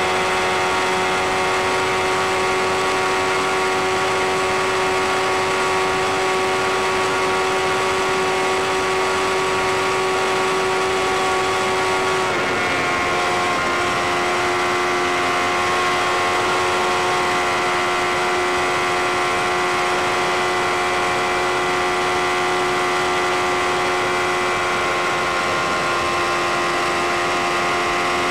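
Sport motorcycle's engine held at high revs at motorway speed, a steady high-pitched drone. About twelve seconds in the pitch dips briefly, then settles a little lower for the rest.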